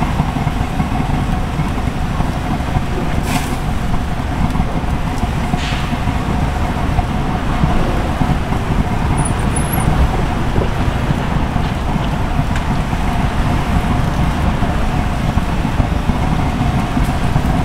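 Gas burner under a round barbecue grill running with a steady low roar. A faint steady tone rides on it, and there are two light clicks about three and six seconds in.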